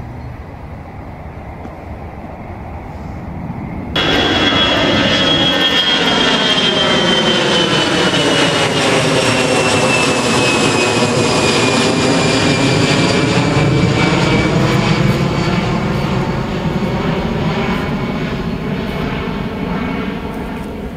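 Twin-engine Airbus A320-family jet airliner climbing out and flying overhead. A low distant rumble jumps suddenly louder about four seconds in, and the engine whine then falls steadily in pitch as the jet passes over before slowly fading near the end.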